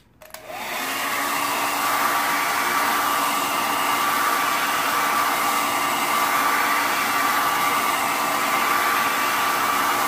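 Handheld hair dryer switched on and running: it spins up over the first second or so, then blows steadily and loudly with a thin, even whine.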